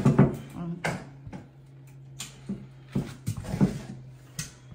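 A mountain bike being manoeuvred and parked on a tiled landing: about ten separate knocks and rattles of the frame, wheels and parts bumping. A steady low hum runs underneath.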